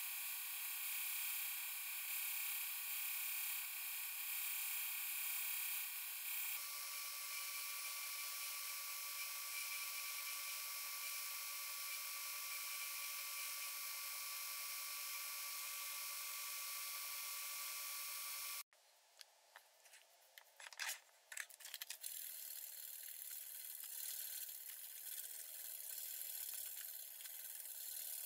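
A small narrow-belt grinder runs with a steady whine, its tone shifting about six seconds in, then stops abruptly about two-thirds of the way through. After that, a strip of abrasive is worked back and forth by hand over a round wooden knife handle, in uneven scraping strokes.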